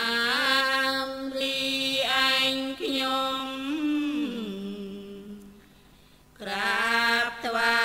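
A single voice doing Thai Buddhist chanting, holding long notes and sliding between pitches. It pauses briefly about six seconds in, then starts again.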